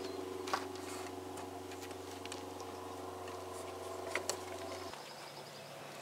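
Pickup truck's plastic exterior door handle pressed into its door pocket, giving a few faint clicks, over a steady low hum that cuts off suddenly about five seconds in.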